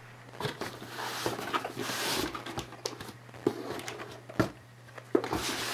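Unboxing handling sounds: paper and plastic packaging rustling, then a few light knocks as items are set down on a wooden table, over a steady low hum.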